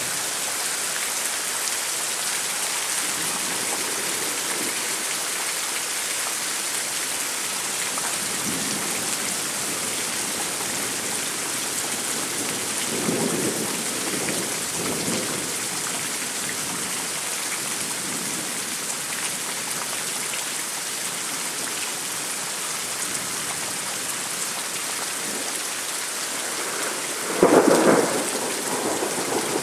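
Thunderstorm: steady rain hissing throughout, with thunder rumbling low a few times in the first half, then a loud, close thunderclap near the end.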